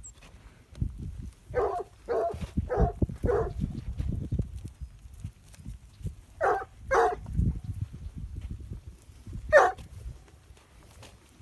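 Plott hound barking to bring in dairy cows: seven short barks, a quick run of four, then two, then a single loud one near the end.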